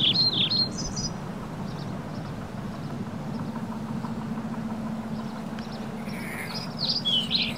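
Outdoor ambience: a steady low drone with a faint hum running under it, and a small bird singing quick falling chirps at the start and again near the end.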